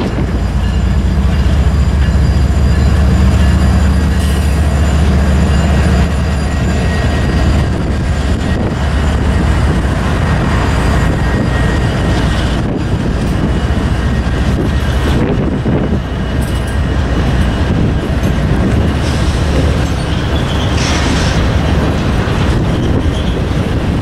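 Norfolk Southern freight train passing close by. The diesel locomotives, among them a standard-cab EMD SD70, give a deep engine rumble for the first few seconds. After that comes the steady rolling and clacking of the locomotive and freight-car wheels on the rails.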